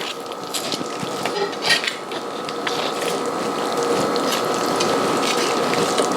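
A steady mechanical rattling with many small crackles and clicks as a roast chicken's breastbone is cut straight through.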